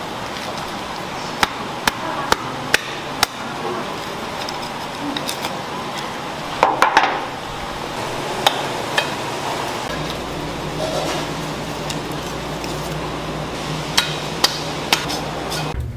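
A large knife clicking and knocking against a giant fish's scales and the board as the fish is cut and scaled, in short irregular strikes over steady kitchen background noise. A low hum comes in about ten seconds in.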